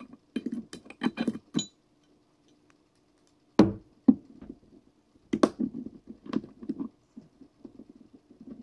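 Scattered clicks and knocks of a disassembled Glock pistol's slide and a small tool being handled: several quick clicks at the start, a sharp knock a few seconds in, then more light knocks, over a faint steady hum.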